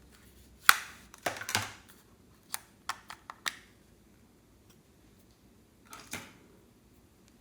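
Clear slime being handled and pressed, giving a series of sharp pops and clicks: a cluster about a second in, four or five single clicks around three seconds, and another pair of pops near six seconds.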